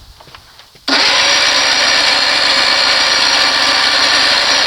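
Electric starter motor cranking a 60 hp Johnson outboard at wide-open throttle for a timing-light check of the ignition timing. It kicks in suddenly about a second in and runs at a steady, even pitch.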